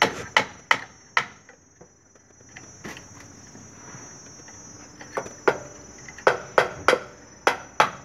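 Hammer blows on a wooden batten nailed across plywood arch formwork: a few quick strikes in the first second, a single one around three seconds, then a run of strikes from about five seconds in. A steady high insect drone sits behind.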